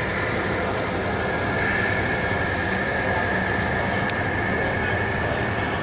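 Radio-controlled model articulated truck driving on tarmac: a steady engine-like drone with a high whine that grows louder about one and a half seconds in.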